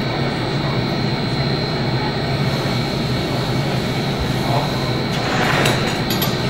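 Steady roaring hum of a glassblowing hot shop, the sound of its gas-fired furnaces and ventilation running, with a few brief knocks near the end.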